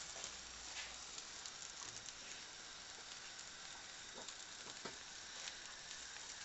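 Omelet sizzling faintly and steadily in a frying pan, with a few light scrapes and taps of a wooden spatula against the pan.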